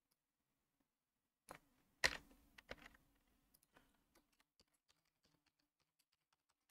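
Computer keyboard being typed on: a few louder key strikes about two seconds in, then a run of light, quick key taps that fade toward the end.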